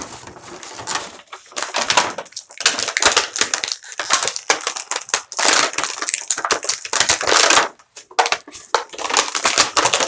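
Clear plastic blister packaging crackling and crinkling as it is pulled apart and crushed by hand, with two short pauses.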